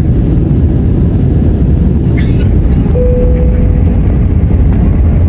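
Airbus A320 cabin noise on the descent: a loud, steady, low rumble of the engines and the airflow past the fuselage. A brief steady tone sounds about three seconds in.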